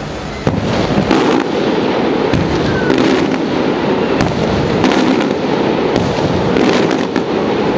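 Aerial fireworks going off: a dense, continuous run of crackling cracks and bangs that starts about half a second in and keeps going.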